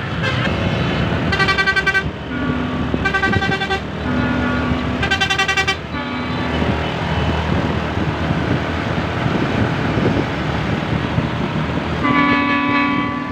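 Basuri telolet horn, a multi-note musical air horn on a vehicle, playing a melody of alternating high and low notes in several short blasts during the first six seconds and again near the end, over the vehicle's engine and road noise.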